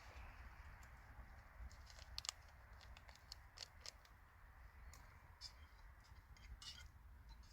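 Faint campfire crackling: scattered, irregular sharp pops and ticks over a soft hiss, the loudest pop about two seconds in.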